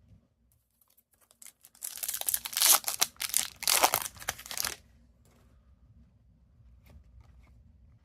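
A hockey card pack wrapper being torn open and crinkled: about three seconds of tearing and crinkling starting roughly two seconds in, then a few faint ticks.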